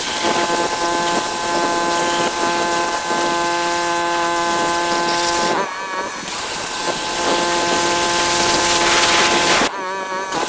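Pressure washer running, its motor and pump giving a steady hum under the hiss of the high-pressure water jet spraying a vinyl fence. The spray cuts off briefly about five and a half seconds in and again near the end, as the trigger is let go, while the machine keeps running.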